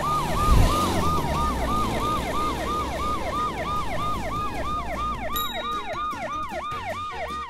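Ambulance siren sound effect: a fast wail that falls in pitch and jumps back up about three and a half times a second, fading a little toward the end. A short low rumble comes about half a second in.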